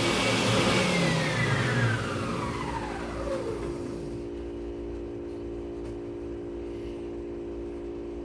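An electric power-tool motor winding down after being switched off: its whine falls steadily in pitch and the running noise dies away over about three seconds, leaving a steady low hum.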